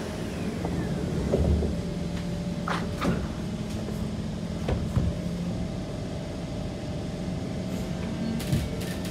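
Inside a Kawasaki C151 metro train car as it pulls away from a station: steady running rumble with several sharp clunks. A steady motor whine comes in about halfway through.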